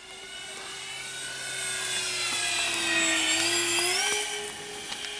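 Twin brushless electric motors of an Avios Albatross HU-16 RC flying boat whining through their three-blade propellers as the model flies past, growing louder to a peak about three seconds in. About four seconds in the pitch dips and then rises as the sound falls away.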